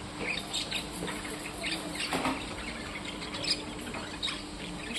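Small birds chirping: short, high, scattered chirps, several each second, over a faint steady hum.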